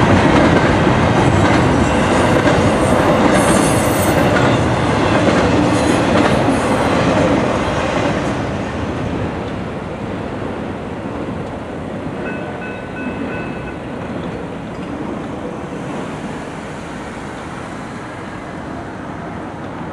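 Freight train cars rolling past on the rails, with clattering wheels, until the last car clears about eight seconds in and the sound falls away. After that, quieter steady street noise remains.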